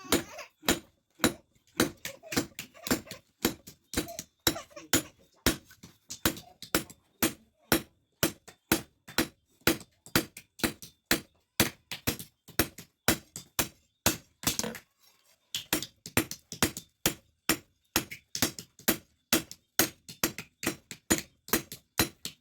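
Rapid hammer blows on steel, about three to four strikes a second, with a short break about fifteen seconds in: leaf-spring steel being forged into a chopping blade.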